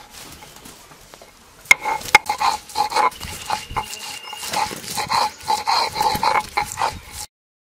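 Garlic cloves crushed on a stone grinding slab with a stone roller (shil-nora): two sharp knocks as the cloves are smashed, then quick rhythmic rasping strokes of stone grinding over stone.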